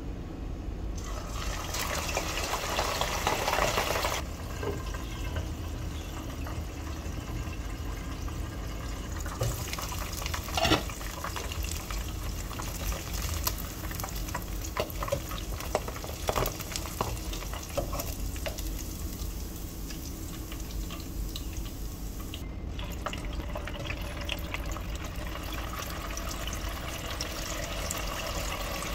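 Pork belly and tofu deep-frying in hot oil: a steady sizzle with crackling and spitting, louder for a few seconds near the start and again in the last third. A sharp metal clack comes about ten seconds in, and a low steady hum runs underneath.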